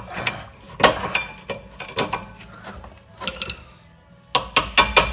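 Metal brake parts clinking and scraping as the rear caliper and brake pads of an Opel Ampera disc brake are worked free by hand. Sharp clicks ring briefly, with a quick run of clinks near the end.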